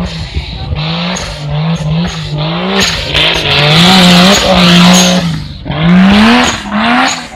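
Off-road racing buggy's engine revving hard as it accelerates across loose dirt. Its pitch repeatedly climbs and drops, and it is loudest as the buggy passes close, about three to five seconds in, with another loud surge at about six seconds.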